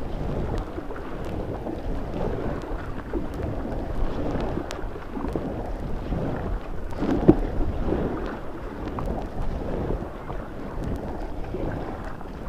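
Rushing and splashing white water close to the microphone, low and muffled, with a few light knocks and a brief louder surge about seven seconds in.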